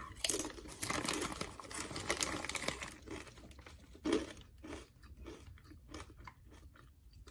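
A person chewing crunchy food close to the microphone: dense crunching for about the first three seconds, then fewer, softer crunches.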